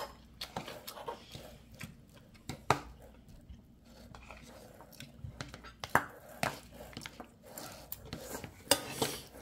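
Utensils clicking and scraping against a bowl as bibimbap rice is stirred and scooped, with scattered sharp taps.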